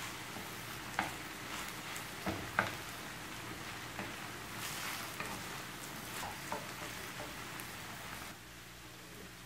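Minced meat and chopped onions sizzling in a frying pan while a wooden spoon stirs and scrapes through them, with a few sharp clicks of the spoon against the pan. The sizzle is quieter for the last second.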